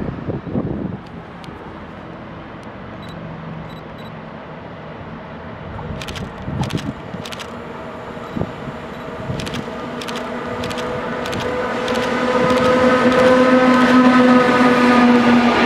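SNCF electric locomotive hauling a train of tank wagons, approaching and passing close. Its motors give a steady humming whine that grows louder over the last few seconds, with scattered sharp clicks as the train nears. Wind buffets the microphone at the start.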